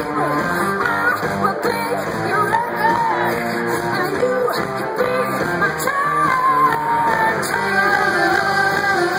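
Live rock band playing: a female lead singer's voice over electric guitars, loud and continuous.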